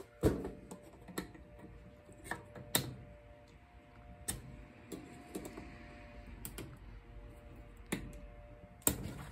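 Irregular metal clicks and light taps of hand tools working the piston retaining clip out of a 1968 Mustang brake master cylinder, with about ten scattered clicks and the sharpest ones just after the start, near three seconds in and near the end.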